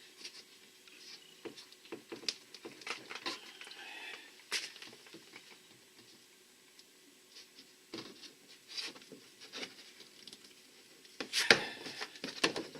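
Handling noises from work on a kayak transducer mount: scattered light clicks, taps and rustles, with a louder run of sharp knocks about a second before the end.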